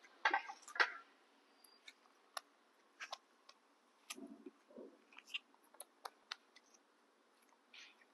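Baby monkey biting and chewing a crisp wax apple: two loud crunchy bites in the first second, then scattered small clicks and soft thuds as it chews and handles the fruit.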